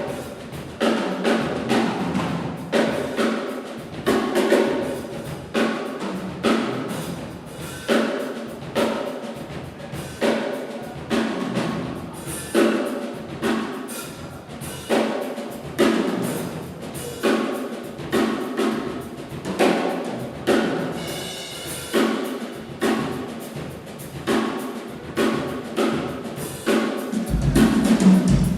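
Drum kit played solo in a steady, busy groove, strikes falling in a regular pattern with an accent about once a second. Near the end the bass drum comes in heavier and the playing gets louder.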